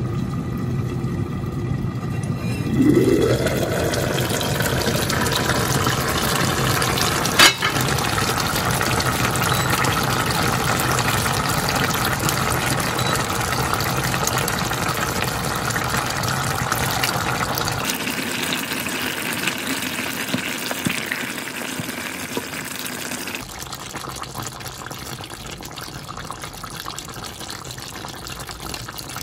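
Steady rush of running liquid, like water flowing, with a brief rising pitch about three seconds in and a single sharp click a few seconds later; it gets quieter in two steps over the second half.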